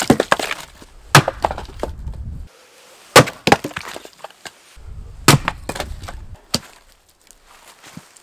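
Axe splitting birch firewood rounds on a chopping block: several sharp chops a second or two apart, each followed by split pieces clattering down onto the woodpile.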